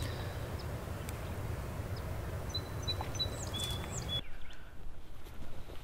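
Outdoor background noise, a steady low rumble, with a few short high bird chirps near the middle. The noise drops out abruptly about four seconds in, leaving a much quieter background.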